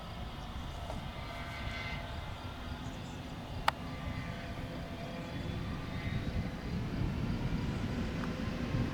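Airbus A320neo's Pratt & Whitney PW1100G geared turbofan engines running: a steady low rumble with faint whine tones above it, growing slightly louder in the second half. A single sharp click sounds a little under halfway through.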